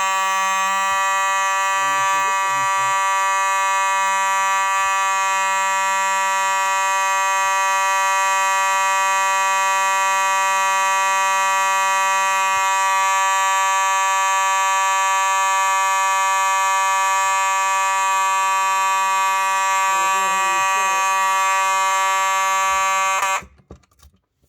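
Simplex 4903-9221 electromechanical fire alarm horn sounding continuously after a dual-action pull station is pulled: one loud, steady buzzing note with no pulsing. It cuts off suddenly about a second before the end.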